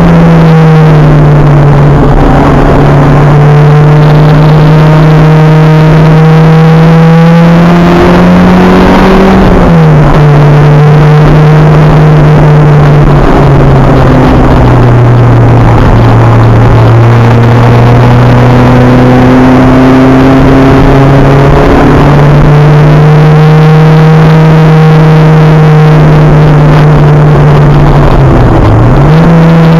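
Acura Integra race car's four-cylinder engine running hard at high revs under load. Its note climbs slowly and drops sharply about a third of the way in and again briefly near the end, as the driver lifts or shifts.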